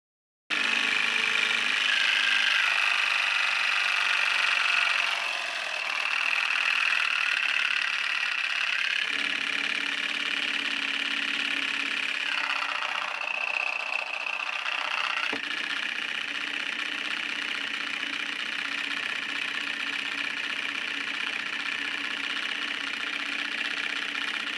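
Small DC motor running steadily, turning a metal ring wheel and wire linkages that work plastic syringe pistons. The whirring sound starts suddenly about half a second in.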